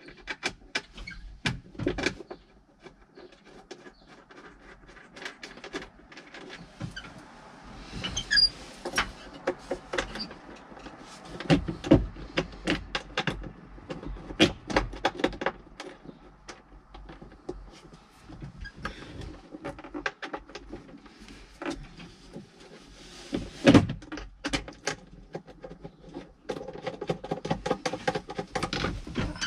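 Plastic cover being fitted back onto a John Deere 410G backhoe's pilot control pedestal: irregular clicks, knocks and rattles of the panel and its fittings being handled and pushed into place. The sharpest knocks come about 12 and 24 seconds in.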